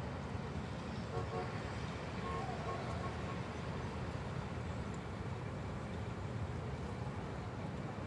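Close-up city street traffic: a steady low rumble of engines and tyres from passing vehicles. A few faint short tones come through between about one and three seconds in.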